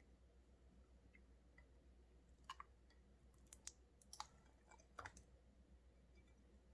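A handful of faint, sharp clicks and small pops over a quiet hum, typical of sticky slime being pressed and pulled apart.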